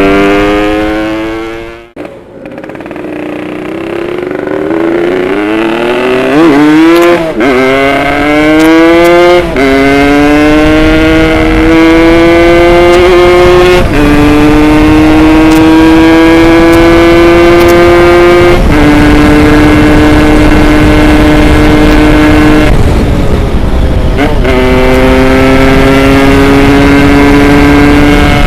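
Tuned Yamaha RX Special 115 two-stroke single-cylinder engine accelerating hard through the gears while being ridden. The pitch rises in each gear and drops at each shift, with the throttle closed briefly about two seconds in and again just before the end.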